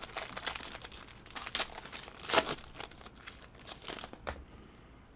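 Plastic wrapping crinkling and tearing in irregular crackles as a sealed trading-card box and pack are opened by hand, strongest about halfway through and dying away near the end.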